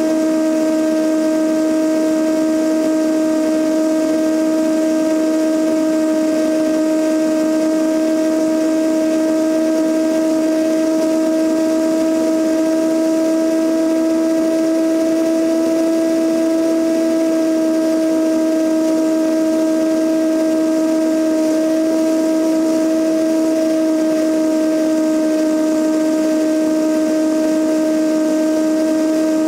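Cessna 172N's four-cylinder Lycoming O-320 engine and two-blade propeller droning steadily in cruise flight, one unchanging tone with higher overtones. Heard from a camera outside the fuselage, with wind rushing past it.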